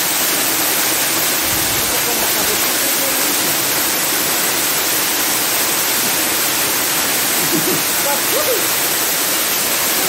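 Waterfall: a steady, loud rush of falling water, with faint voices heard briefly under it about three-quarters of the way through.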